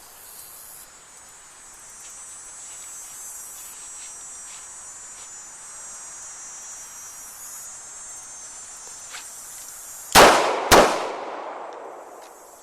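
Two revolver shots about half a second apart near the end, from a snub-nose revolver firing .38 Special rounds, each with a short echo. Before them, a steady high drone of insects.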